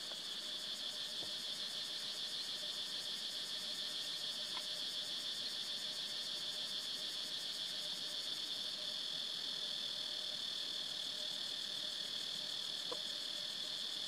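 Steady, high-pitched chorus of insects, with fast even pulsing. A couple of faint short sounds rise above it, one partway through and one near the end.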